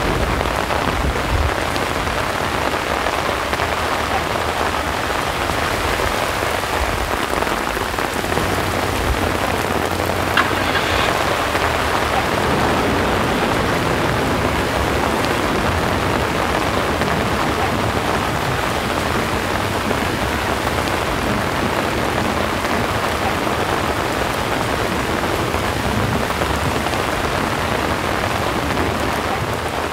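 Heavy rain falling steadily on a street and parked cars.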